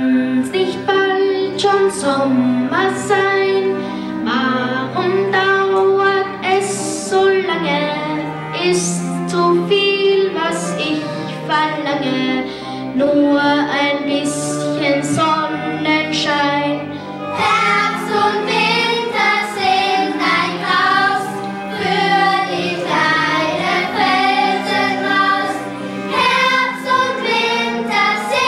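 A group of children singing a song together over instrumental accompaniment.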